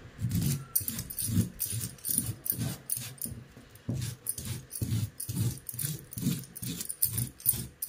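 Kitchen knife scraping the skin off a chayote root on a plastic chopping board: quick, even scraping strokes, about three a second.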